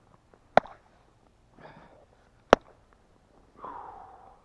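A man breathing hard and sniffing, ending in a long heavy exhale. Two sharp knocks come about two seconds apart.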